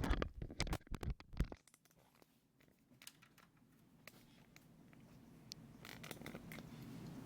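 A quick cluster of clicks, knocks and scrapes from handling the opened stereo receiver, over the first second and a half, then only a few faint ticks.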